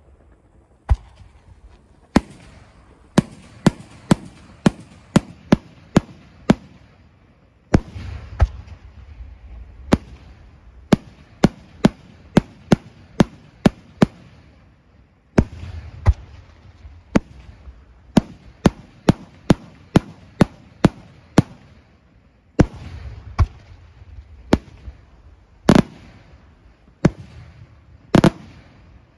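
Aerial firework shells bursting in rapid volleys of sharp bangs, several a second, with a few short lulls between runs. A low rumble and hiss hang between the reports.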